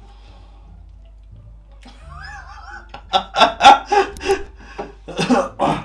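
A man laughing hard in a string of loud, short bursts, starting about three seconds in, after a quiet start.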